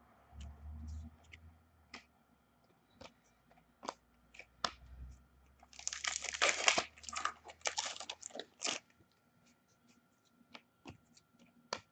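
Hockey card pack wrapper being torn open and crinkled, with light clicks and snaps of cards being handled. The densest crinkling comes about six to seven seconds in, with another flurry near eight seconds.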